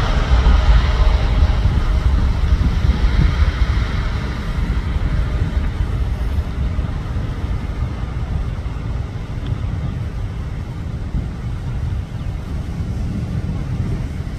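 Boeing 777 twin-engine jet at takeoff power, a loud deep roar heard from behind as it rolls, lifts off and climbs away. The higher-pitched part of the roar fades over the first few seconds, leaving a low rumble that slowly weakens.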